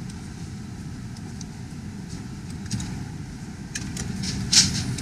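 Car engine idling steadily, heard from inside the cabin, with a few short crisp noises in the second half, the loudest about four and a half seconds in.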